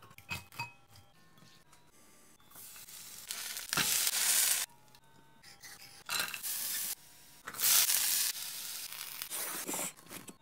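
A run of kitchen cooking sounds over soft background music. A wire whisk clicks against a glass mixing bowl. Then there is a loud hissing sizzle, typical of Korean pancake batter frying in a pan. After it comes a knife cutting the pancake on a plate, and plastic wrap crinkling around a rice ball.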